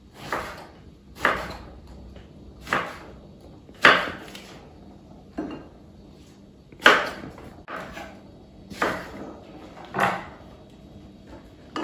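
Kitchen knife slicing eggplant into rounds on a wooden cutting board: about ten separate knocks of the blade striking the board, roughly one a second.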